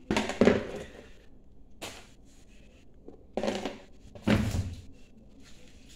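Plastic rubbish bin and its lid being handled: a few dull thunks and knocks as the lid is lifted off and set back on. The loudest are near the start and a little past the middle.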